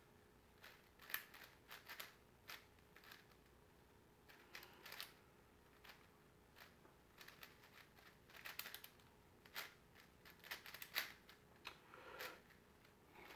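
Faint plastic clicking of a 5x5 Rubik's cube being turned, in short bursts of quick turns with pauses between.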